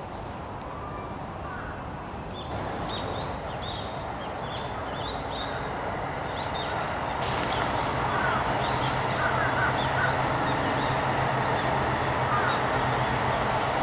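Small birds chirping repeatedly in short high calls over a steady outdoor hiss. A low steady hum comes in about seven seconds in.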